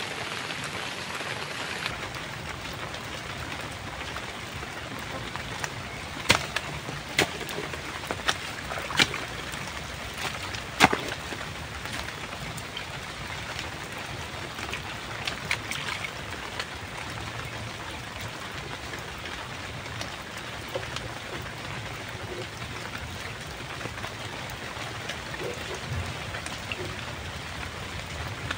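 Steady rain hissing, with a run of about five sharp knocks, roughly one a second, some six seconds in.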